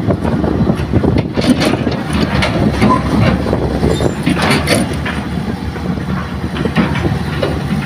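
An excavator's diesel engine running steadily while it works, with irregular clanks and knocks throughout.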